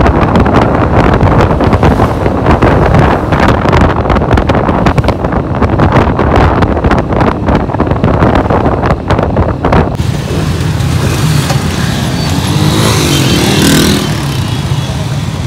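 Riding in a moving road vehicle, with strong, gusty wind noise on the microphone. About ten seconds in, this drops to quieter road-traffic sound, with an engine nearby rising and falling in pitch.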